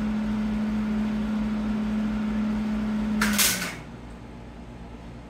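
A steady electrical hum, then about three seconds in a half-second crackling hiss as the Hobart Handler 210 MVP MIG welder tries to strike an arc. The hum then dips in pitch and stops as the welder cuts out on the Jackery power station's 110 V supply.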